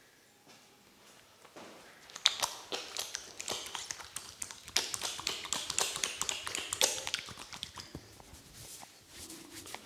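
Rapid, irregular sharp taps of hands working on a person's head during a head massage, starting about two seconds in and thinning out near the end.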